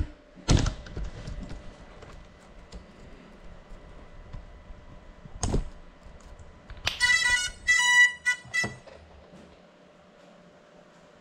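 A small FPV quadcopter knocks against hard surfaces about half a second in and again about five and a half seconds in, coming to rest on a table. Then there is a quick run of short, high electronic beeps from its onboard beeper. No propeller or motor sound is heard, so the motors are stopped.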